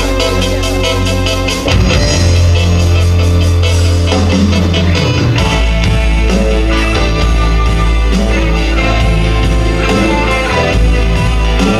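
Minimalist live band music: a fast, even repeating pulse over sustained bass notes, with the bass changing pitch about two seconds in and again about five seconds in.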